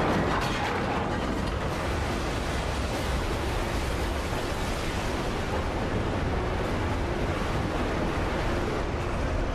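Steady rushing noise with a low rumble underneath: the aftermath of a blast or cave-in sound effect.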